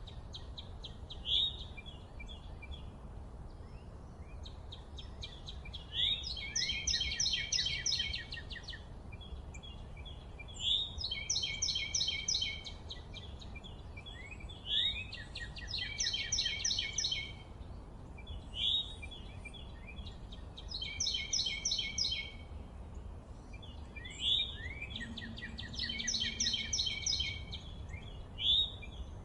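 A songbird singing the same short phrase over and over, each a quick run of repeated high notes lasting about two seconds, coming back every four seconds or so. A steady low rumble lies underneath.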